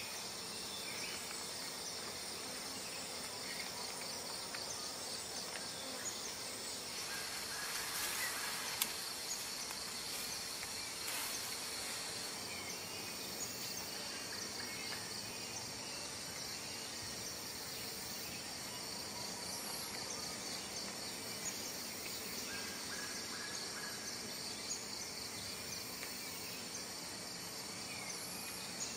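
Tropical rainforest insect chorus: a dense, steady, high pulsing trill over a background hiss, with a brief swell of louder hiss about eight seconds in.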